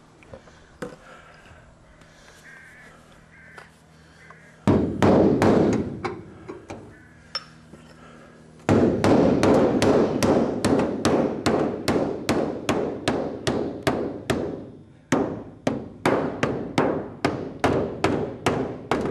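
Rapid hammer blows on the dented aluminium leading-edge skin of a light aircraft wing as a bird-strike dent is worked out: a short flurry about five seconds in, then a steady run of sharp strikes about three a second from about halfway, with a brief pause near the end.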